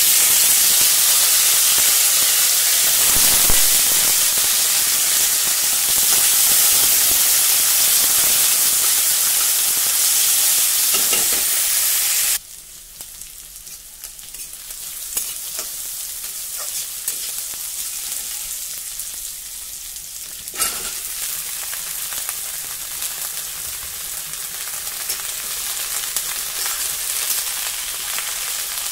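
Sliced onions hitting hot oil in a kadai and frying: a loud sizzle starts the moment they go in, then drops suddenly about twelve seconds in to a softer, crackling sizzle that slowly grows louder again.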